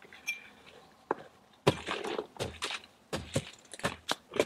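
Paper notebook being handled: irregular soft knocks and rustles of its pages and cover, in small clusters from about a second in.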